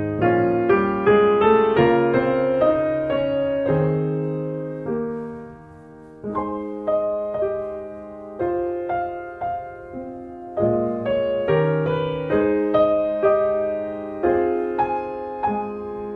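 Background piano music: a slow melody of struck notes that ring and fade, with a lull about five to six seconds in before it picks up again.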